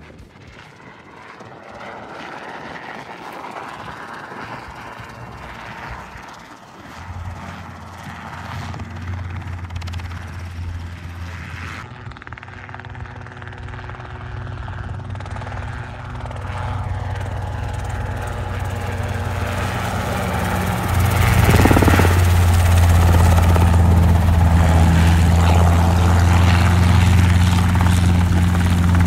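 Robinson R22 helicopter's rotor and piston engine, coming down in a practice autorotation toward a sliding landing. Faint at first, it grows steadily louder as it nears, and is much louder from about two-thirds of the way in.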